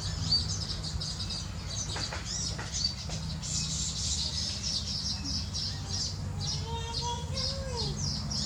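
A flock of small nesting birds chattering, many short high chirps overlapping without pause, with a few lower gliding calls about three-quarters of the way through. A steady low rumble runs underneath.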